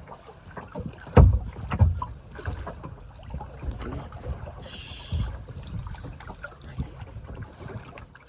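Small boat being paddled: water splashing and dull knocks, irregular, the loudest a little over a second in and just under two seconds in.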